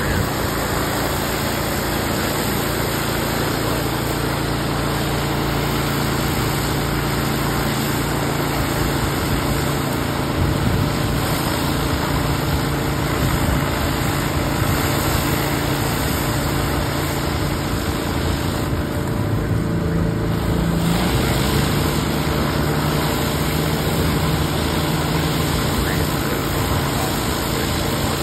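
Pressure washer running steadily under load, with the hiss of a 19-inch rotary surface cleaner spraying concrete. About two-thirds of the way through, the spray hiss drops for a couple of seconds and the engine note rises slightly.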